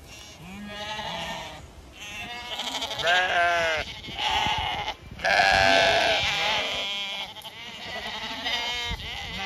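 Zwartbles sheep and lambs bleating: many quavering calls one after another, often overlapping, the loudest about halfway through.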